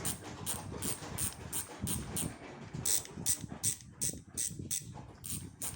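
Freehub pawls of an unmounted Speedone bicycle rear hub ratcheting as the hub is turned by hand, in repeated short bursts of fast clicking, about two to three bursts a second.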